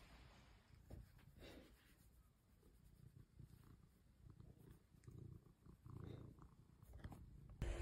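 Domestic cat purring faintly while being stroked, a low rumble that swells and fades with its breaths.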